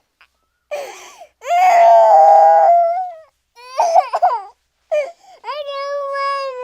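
Cartoon crying sound effect: a voice wailing in two long held cries with short sobbing gasps between them, the second cry sagging in pitch near the end.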